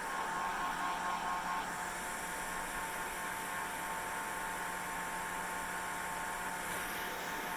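Hair dryer running steadily: a constant rush of blown air with a steady motor hum and whine.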